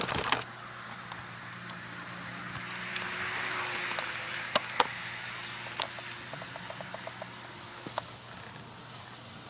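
N-gauge model of a two-car Kintetsu 1252 series train running past on its track. There is a rolling hiss that swells and fades as it nears and passes, over a faint motor hum, with sharp clicks as the wheels cross rail joints and a quick run of small ticks about two-thirds of the way through. A few sharp knocks come right at the start.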